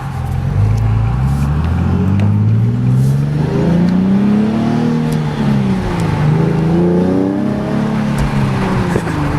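Nissan 370Z's 3.7-litre V6 through an AAM Competition 2.5-inch true dual catback exhaust, pulling hard under acceleration. The engine pitch rises for several seconds, drops at a gear change about halfway, climbs again, and falls near the end.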